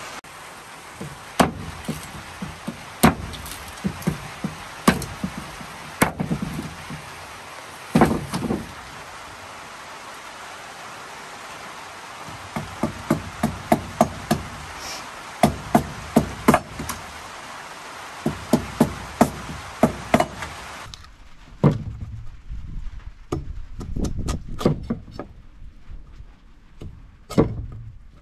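Sugarcane being chopped and trimmed with a blade: a series of sharp knocking strikes, irregular at first, then quick runs of about two a second. A steady background hiss drops away about three-quarters of the way through.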